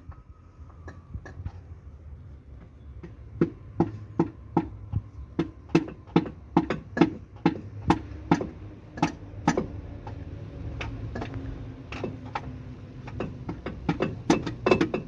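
A run of sharp knocks, about two a second, with a short pause, then a few more near the end, as a piston is tapped out of its cylinder bore in a diesel engine block.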